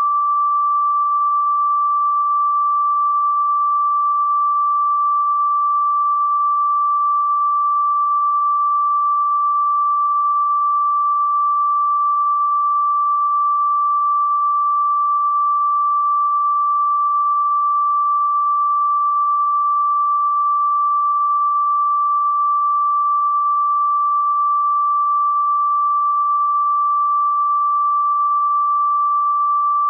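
A single steady electronic sine tone, a pure fairly high-pitched note held without any change, played as a 'healing frequency' tone.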